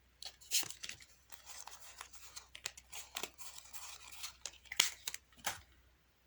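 Playing cards being handled and dealt out: irregular sharp snaps and flicks of cards, with a soft stretch of cards sliding in the middle.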